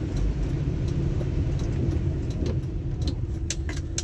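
Car driving on a wet road, heard from inside the cabin: steady engine and tyre rumble with a hiss. About three seconds in, a quick run of sharp ticks starts.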